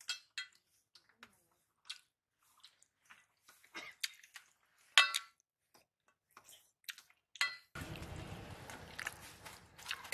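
Hand-eating from stainless-steel plates: fingers squelching and mixing rice with dal, with scattered soft clicks and a couple of short ringing clinks of the steel plate, the loudest about halfway through. Near the end a steady hiss sets in underneath.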